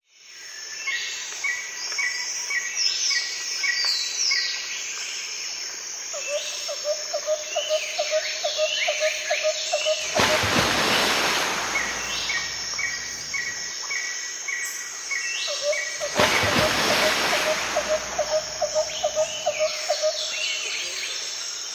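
A chorus of several birds chirping and trilling, with a quick repeated lower call coming in twice. Two rushes of noise of about two seconds each break in around halfway and again later.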